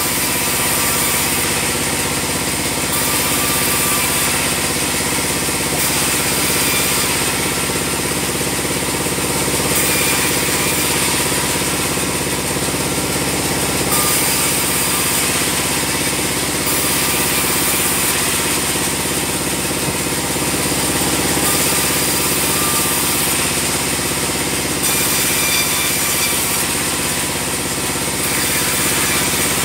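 Band sawmill running steadily, its motor and blade making one continuous drone with no pauses.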